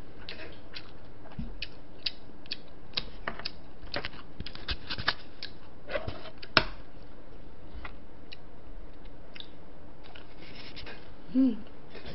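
Close-miked eating: irregular sharp clicks and taps from chewing and from utensils against plastic takeout containers, with a short voiced 'mm' about eleven seconds in.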